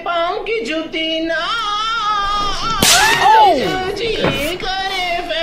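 A young man singing a slow Hindi ballad solo, with held, wavering notes and heavy vibrato. About three seconds in, a sudden loud burst cuts across, with a pitch that swoops steeply down.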